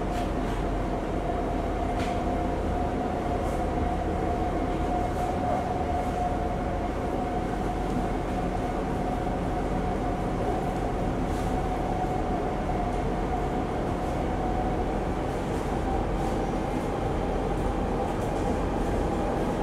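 Singapore MRT train running along the line, heard from inside the carriage: a steady rumble of wheels on the track with a steady whine held throughout.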